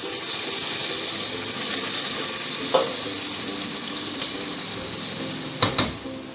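Mutton and masala sizzling in an aluminium pressure cooker as a glass of water is poured in, a steady hiss. A wooden spoon stirring knocks against the pot about three seconds in and twice near the end.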